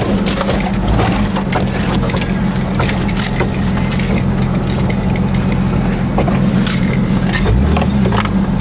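Jeep engine running steadily, heard from inside the cab, with many sharp rattles and clatters from the cab as it bounces over a rough snow-covered trail. The engine note shifts briefly near the end.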